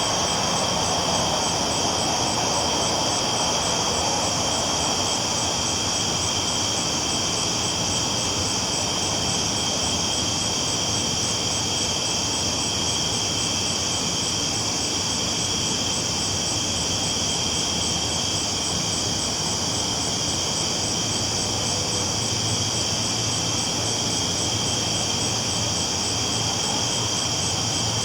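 Train rolling steadily along the tracks: an even, unbroken rumble with a constant high-pitched hiss over it.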